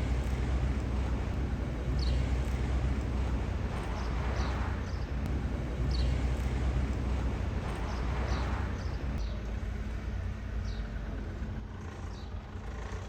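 A car engine running with a steady low rumble. Two slower swells of noise come about four and eight seconds in, and short high falling chirps repeat every second or two.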